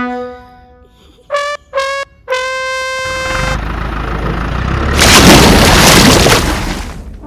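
Brass-style background music: a held note fades, then three short horn-like notes sound, the last one held. A loud rushing noise then swells and dies away near the end.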